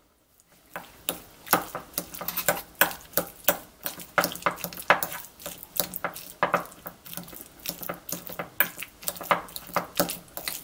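A metal fork mashing and chopping hard-boiled eggs in a bowl, its tines clinking and tapping against the bowl in quick, irregular strokes that start about a second in.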